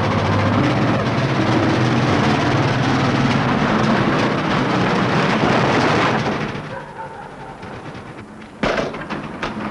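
Veteran open motor car's engine running hard with a rapid chugging beat as the car pulls away, dying down after about six seconds. Near the end a sudden burst of sharp knocks.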